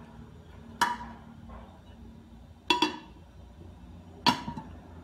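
Three sharp clinks and knocks, each with a short ring: a dish being set into a microwave oven and the oven door shut. The middle one is a quick double knock.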